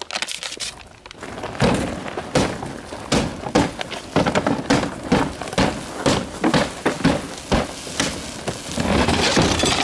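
A big open fire flaring up about a second in and burning with a rushing hiss and many sharp crackles.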